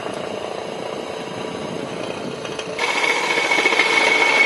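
Power drill with a masonry bit running steadily as it bores up through the roof. About three seconds in it grows louder, with a high steady whine, as the bit grinds through the metal roof panel.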